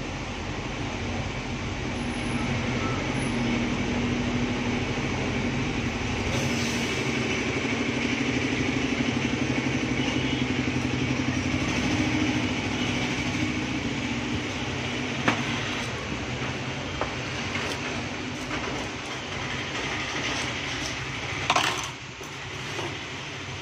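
Steady rumble of road traffic, with an engine hum that swells and fades in the first half. A light click about two-thirds of the way in and a brief louder noise near the end.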